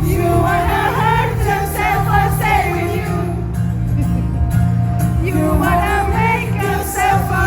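Live rock band playing with heavy bass under a sung male lead vocal.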